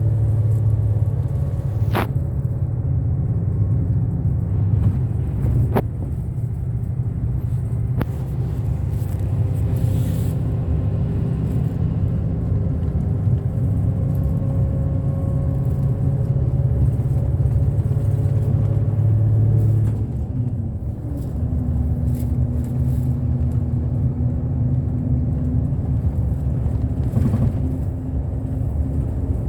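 Inside a bus cabin on the move: a steady low rumble of the bus engine and road noise. There are a few sharp knocks in the first several seconds, and about twenty seconds in the engine note drops and settles lower.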